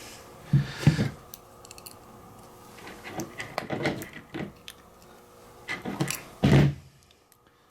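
Hands handling wiring parts, with small clicks, taps and rattles of connectors and wires, and two louder dull knocks about half a second in and again about six and a half seconds in.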